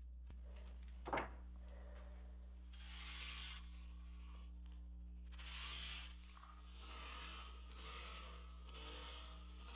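Faint hand sanding on a wooden kayak paddle blade: several slow rubbing strokes of sandpaper on wood from about three seconds in. A short knock about a second in, over a steady low hum.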